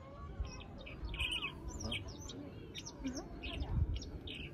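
Birdsong played back from an interactive bird-call exhibit: a small songbird's quick, high chirps and short trills repeating throughout. A few low thumps sound under it, the strongest near the end.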